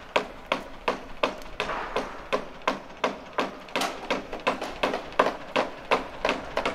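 A steady, even beat of sharp tapping strikes, about three a second.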